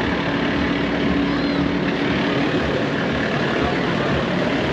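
Steady mechanical drone with a low, unchanging hum, over the murmur of a crowd of people talking.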